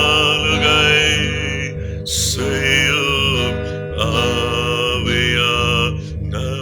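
Worship music: a slow melody in long, wavering held notes, phrased about every two seconds, over a bass that pulses about twice a second.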